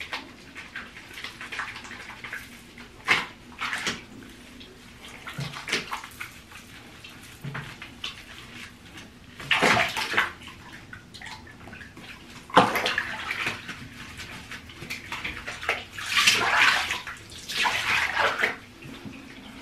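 Water splashing and sloshing in a bathtub as a small dog is washed by hand, in irregular splashes, loudest about halfway through and again near the end.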